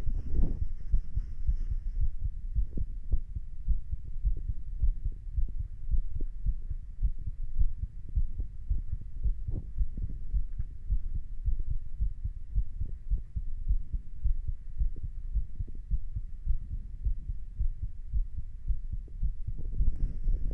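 A person's heartbeat: steady, repeated lub-dub heart sounds as soft low thumps over a low hum.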